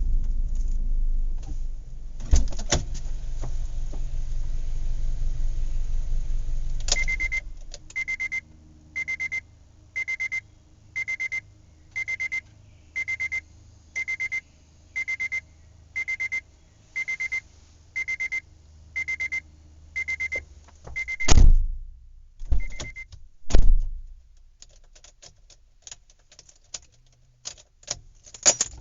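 A farm vehicle's engine runs with a low rumble and then settles. A reversing alarm beeps about once a second, around fourteen times, over the faint engine hum. Two heavy thumps follow, the loudest sounds here, then some light clatter.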